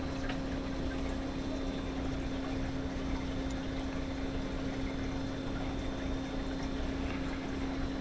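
A steady low electrical-sounding hum with an even hiss under it, and a couple of faint clicks.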